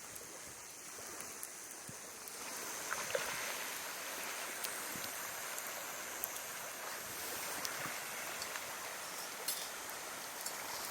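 Steady rushing noise with a few scattered sharp crackles, typical of a wood campfire burning.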